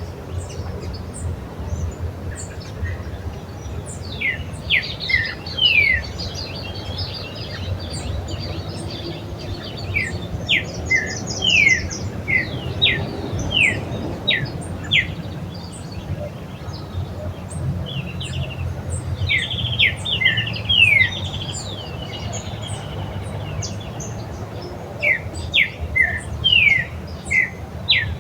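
Several songbirds calling in a chorus, mostly with short, quickly falling whistled notes repeated in loose runs, mixed with a few fast high trills. A steady low rumble runs underneath.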